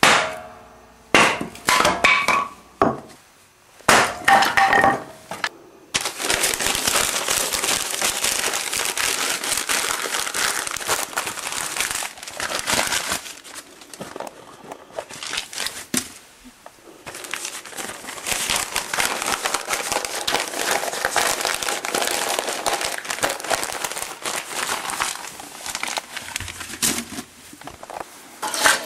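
Split kindling sticks clattering together in a few sharp knocks and ringing clinks, then a long run of paper being crumpled and handled to lay a wood-stove fire, with short pauses.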